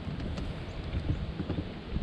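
Light, irregular knocks and bumps on a fishing boat over a steady low rumble.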